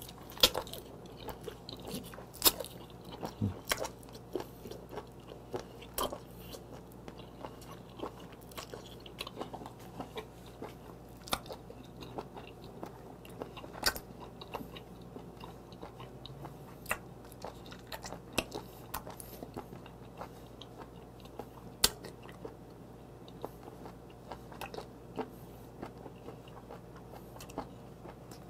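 Close-miked chewing of raw live small octopus (sannakji): irregular wet smacks and sharp clicks of the mouth working through the rubbery tentacles.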